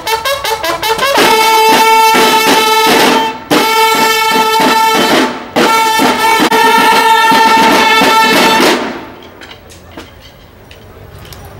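A marching drum-and-bugle band plays: snare drums beat steadily, then from about a second in the bugles hold long notes over the drums in three phrases with short breaks between them. The band stops about nine seconds in.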